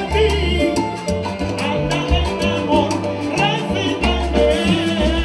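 Cuban timba band playing salsa live, with a pulsing bass line, steady percussion and a lead singer.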